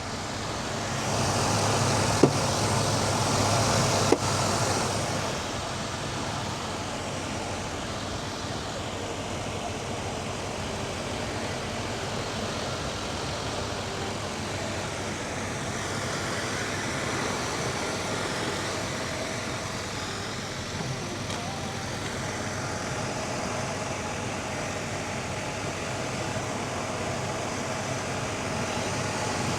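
1991 Chevrolet Caprice's V8 idling steadily after a water pump, thermostat and coolant temp sensor replacement. A louder rushing stretch with two sharp clicks comes in the first few seconds.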